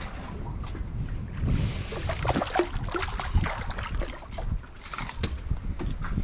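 Irregular knocks and rattles of movement and handling on a fishing boat over a steady low rumble, busiest in the middle.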